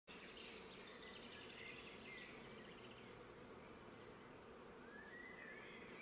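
Faint nature ambience: soft bird chirps and trills, with a short rising call near the end, over a steady low background hum.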